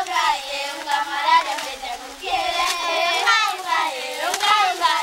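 A group of girls singing together, their high voices carrying one rising and falling tune.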